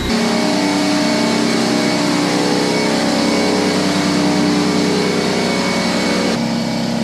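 Harbor Freight Fortress 5-gallon 225 PSI air compressor running steadily through its break-in, with the drain valve and regulator open so the pumped air escapes freely: a low rumble. Its tone shifts slightly near the end.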